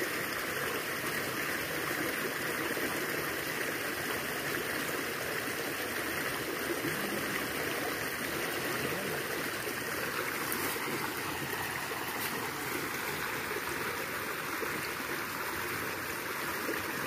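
Small forest stream flowing, a steady rushing babble of water.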